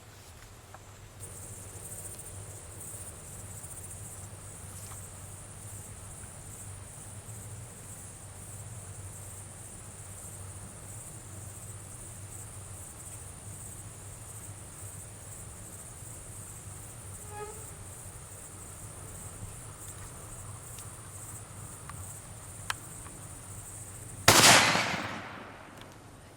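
Steady high-pitched chorus of night insects, then about two seconds before the end a single loud gunshot at a boar, with a short echoing tail.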